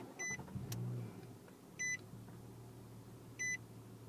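A dashboard warning chime beeps three times, about every second and a half. Under it, the 2010 Nissan Maxima's 3.5-litre VQ35DE V6 starts from the push-button and settles into a low, steady idle.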